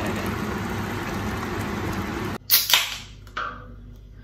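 Steady rushing noise from the pot of ramen cooking on the hob, stopping abruptly. Then a Coca-Cola can is snapped open: two sharp cracks in quick succession with a bright fizzing hiss, followed by a smaller click.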